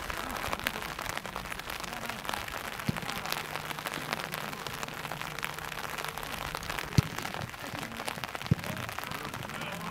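Two sharp thuds of a football being kicked on a grass pitch, about seven seconds in and again a second and a half later, over a steady crackling patter of small ticks.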